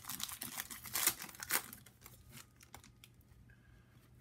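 Panini Prizm trading-card pack wrapper being torn open and crinkled, a dense crackling rustle for the first second and a half or so, then fading to faint sparse crackles as the cards are slid out.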